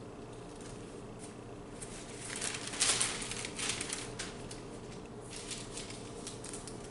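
Thin Bible pages rustling as they are leafed through, a flurry of crinkly page turns about two seconds in, loudest near three seconds, then dying away. A faint steady hum runs underneath.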